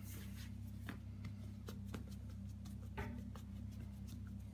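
Faint soft taps and pats of hands kneading and pressing out soft focaccia dough on a floured worktop, a few light clicks spread through, over a steady low hum.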